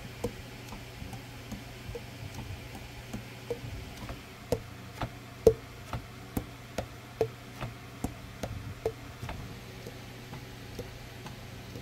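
Keys of a Julius ST-90 Series 2 alto saxophone pressed and released by hand, the pads tapping shut on the tone holes in a run of light clicks, about two a second, over a faint low hum. This is a leak test, with every key closing with a tight seal.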